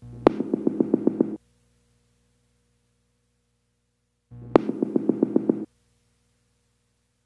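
Background synthesizer music: two short phrases of quick repeated notes, each about a second and a half long, with silence between them.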